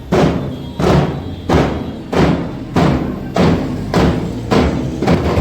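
Festival procession drumming: loud strikes on a steady beat, about three every two seconds, each ringing out, over a low steady hum.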